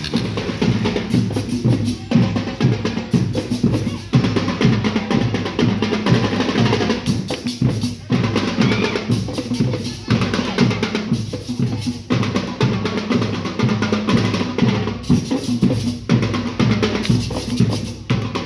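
Drum section of a school banda de guerra playing a steady, fast marching cadence on snare and bass drums.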